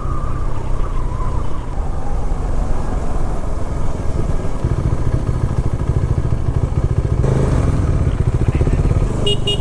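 Motorcycle engine running as the bike is ridden, its exhaust pulsing steadily and getting louder about halfway through as it picks up.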